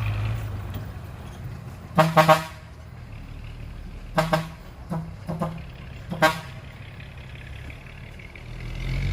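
A truck horn honking in a series of short blasts, the first about two seconds in and several more between about four and six and a half seconds, over a low running engine.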